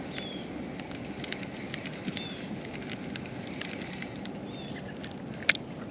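Steady outdoor background noise with scattered small clicks and a few short high chirps, and one sharp knock about five and a half seconds in.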